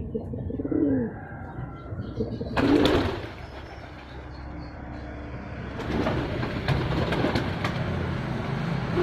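Domestic pigeons cooing: a few low coos, the loudest about three seconds in. From about six seconds in there is a rustling noise with many light clicks.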